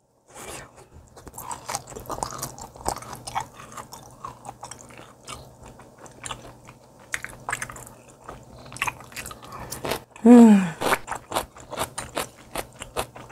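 Close-miked chewing of raw fatty yellowtail belly sashimi: a stream of soft, wet mouth clicks and smacks. A short voiced sound with a falling pitch comes a little after ten seconds in.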